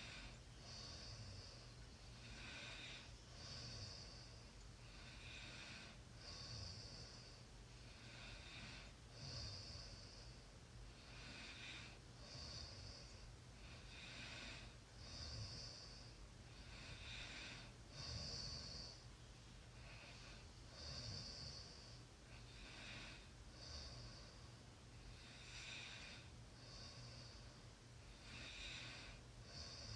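A person snoring in sleep, faint: a breath in and out about every three seconds, each with a short hissing snore.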